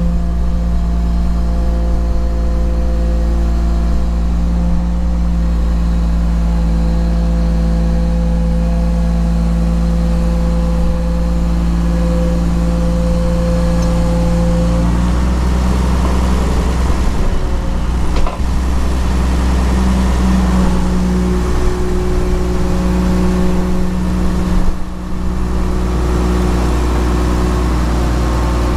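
Komatsu PC220LC excavator's diesel engine running steadily under hydraulic load as the boom and arm lift the bucket. The engine note changes about halfway through, with a single knock shortly after.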